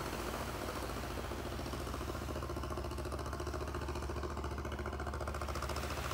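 An engine running steadily with a rapid, even chugging pulse.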